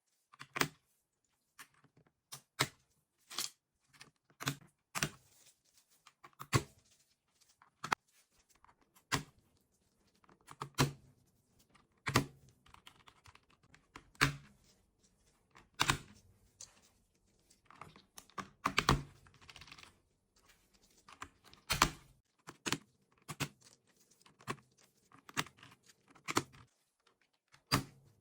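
Computer keyboard keys clicking one at a time: sharp, separate clacks at an irregular, unhurried pace of about one a second, with a faint hum between them.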